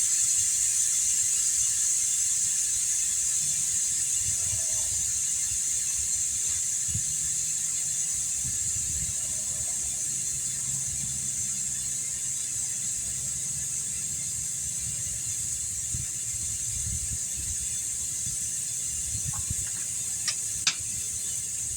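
Air hissing steadily out of a tire through its valve stem with the valve core removed, slowly getting quieter as the tire deflates. A couple of light clicks near the end.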